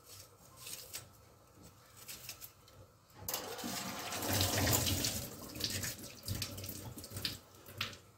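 A knife slicing through a red onion held in the hand, a few faint crisp cuts. About three seconds in, water starts running from a tap into a sink: a steady rush for some four seconds that then dies away, with a cut or two after it.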